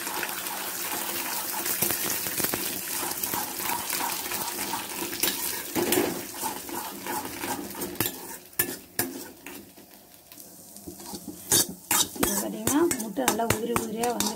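Eggs frying in hot oil in a small stainless steel kadai, sizzling steadily, while a steel spoon scrambles them. In the second half the sizzle thins and the spoon gives sharp clinks and scrapes against the pan.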